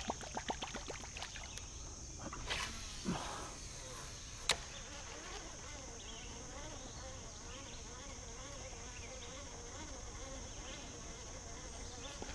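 Steady high-pitched drone of insects, with a run of quick ticks near the start and one sharp click about four and a half seconds in.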